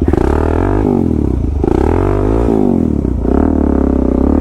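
Suzuki DR-Z400S's single-cylinder four-stroke engine, breathing through an aftermarket slip-on exhaust, revving up and down several times under load as the bike works over rough rocky ground.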